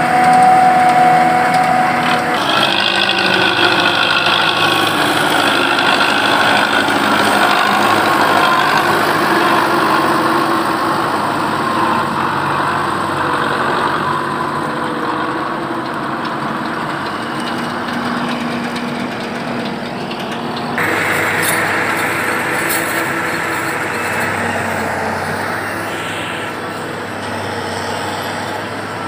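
Heavy farm machinery running steadily: a forage harvester and tractor engines working as maize is chopped and loaded into a trailer, with a steady whine in the first two seconds. The sound changes abruptly about two seconds in and again about twenty-one seconds in, ending on a tractor engine pulling a disc harrow.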